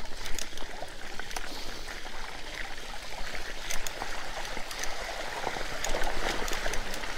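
Shallow stream water rushing and splashing around mountain bike wheels rolling through it, with scattered small clicks and ticks.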